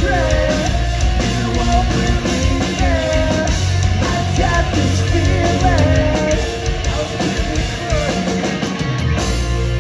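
Live pop-punk band playing: distorted electric guitars, bass and drums with a man singing. The singing stops about two-thirds of the way through, and the low end drops out for a moment near the end before held chords ring on.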